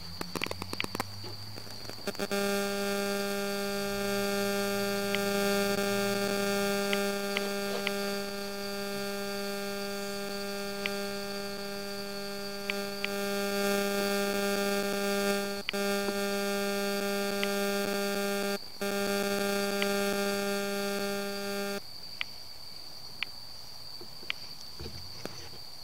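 A steady electronic hum, one low buzzing tone with many overtones, that starts about two seconds in and cuts off suddenly about four seconds before the end, with two brief dropouts along the way. A faint high whine sits underneath.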